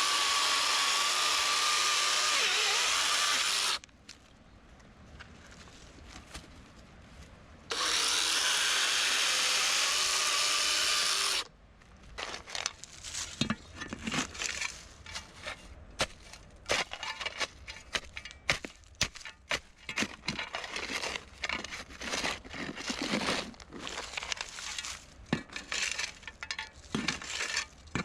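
A Kebtec DLA-0017 chainsaw cutting wood in two bursts of a few seconds each, a steady whirring with a high whine, stopping in between. After that comes an irregular clatter of knocks, like cut wood being handled and dropped.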